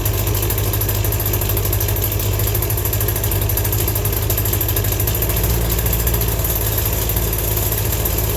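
Small gas engine idling steadily just after a cold start.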